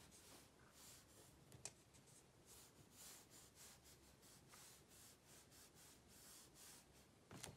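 Fine-tip drawing pen scratching faintly across sketchbook paper in a series of short, quick strokes. There is a sharp tick about a second and a half in and a louder knock near the end.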